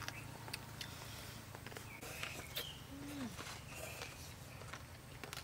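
Eating sounds: scattered crunches and clicks as crispy fried pork belly is bitten and chewed and chopsticks touch the plates, with a few short high chirps in the background.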